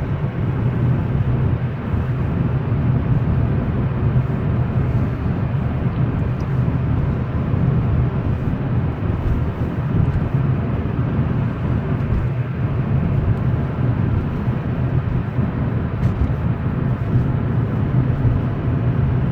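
Steady engine and road noise inside the cabin of a 2012 Hyundai Elantra cruising at about 40 mph, with a pretty faint ticking that the owner believes comes from the engine.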